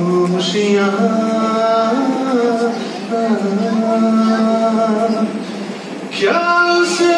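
A man singing a slow Hindi film song into a microphone, holding long notes. Near the end he pauses briefly, then comes in strongly on a new phrase.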